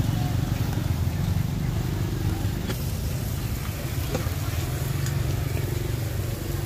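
Steady low rumble of street traffic and motorbikes, with a couple of light clicks about three and four seconds in.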